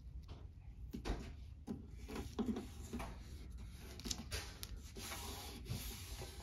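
A long strip of painter's tape being laid along a row of wooden dollhouse wall pieces and rubbed down by hand: scattered light taps and rustles, then a longer stretch of rubbing about four seconds in.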